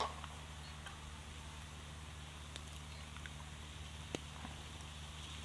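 Food sizzling faintly in a pan over a campfire, with scattered crackles and clicks from the fire and a wooden spoon against the pan, a louder knock right at the start and another about four seconds in. A steady low hum runs underneath.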